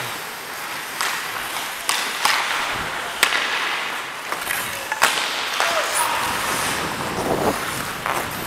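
Ice skate blades scraping and carving on rink ice, with wind rushing over the microphone of a skating player, broken by several sharp knocks, the loudest about three and five seconds in.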